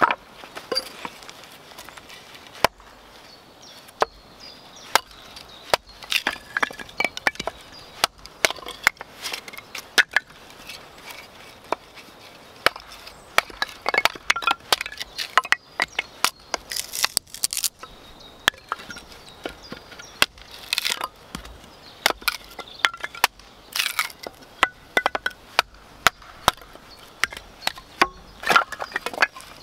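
A hatchet chopping kindling on a wooden stump: many sharp chops and cracks of wood splitting, at an uneven pace with short clusters of quick strikes.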